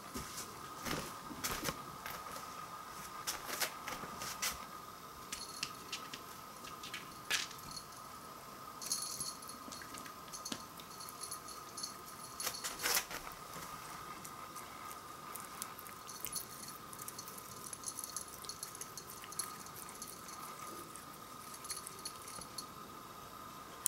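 Cat pawing at and mouthing a moth on a wooden floor: scattered small taps, scuffles and light jingling rattles.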